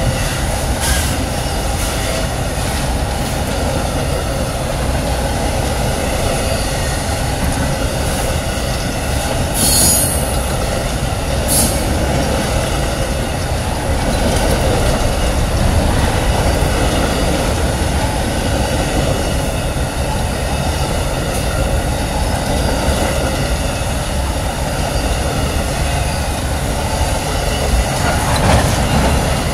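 Amtrak Auto Train's autorack cars rolling steadily past, wheels rumbling on the rails, with faint steady wheel squeal. Two brief high-pitched screeches come about ten and eleven and a half seconds in.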